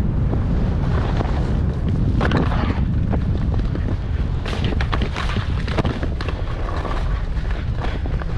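Wind buffeting a skier's camera microphone in a steady low rumble while skis run over groomed snow. Short hissing scrapes of the ski edges come through, most about two seconds in and again around four to five seconds in.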